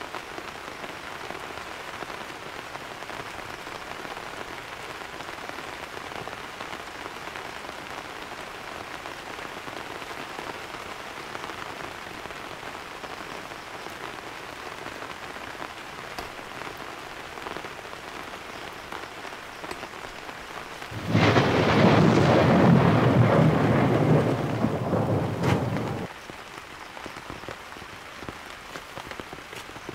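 Steady heavy rain falling. About two-thirds of the way through, a loud rumble of thunder starts suddenly, lasts about five seconds and cuts off abruptly.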